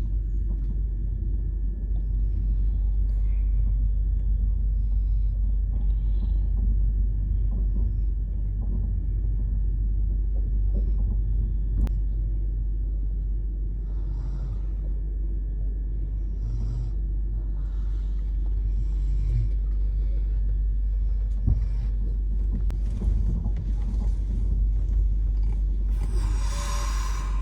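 Steady low rumble of a moving train, heard from inside a sleeper coach, with faint scattered clatter over it. A louder, pitched sound breaks in near the end.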